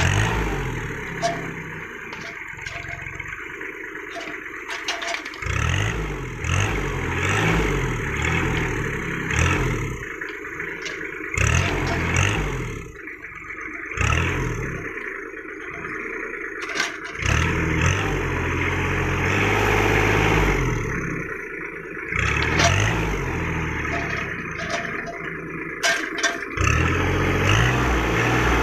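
Kubota L3200 tractor's three-cylinder diesel engine running and repeatedly revving up and settling back as it drives the hydraulic crane grabber, with sharp clatter and knocks as oil palm fruit bunches are grabbed and dropped into the metal trailer.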